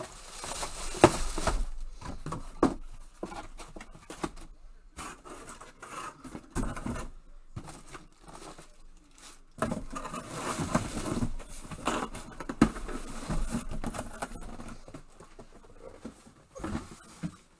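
Cardboard boxes and packaging being handled: rustling, scraping and tearing with scattered knocks, in two bouts, one at the start and one about ten seconds in.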